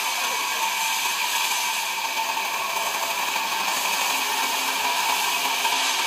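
Large vertical band saw running steadily: a constant whine over an even hiss.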